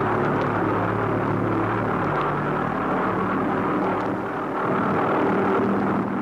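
V-1 flying bomb's Argus pulsejet running: a steady drone with a low pitched hum under a harsh noisy wash, dipping briefly in loudness about four seconds in.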